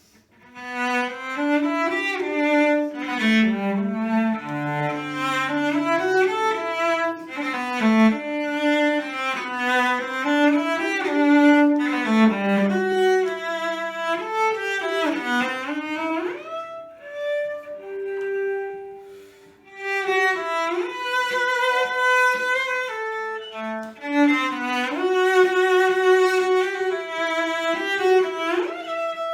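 A bowed string instrument plays a lyrical solo melody: sustained notes with vibrato and a few quick upward slides, beginning just after a moment of silence.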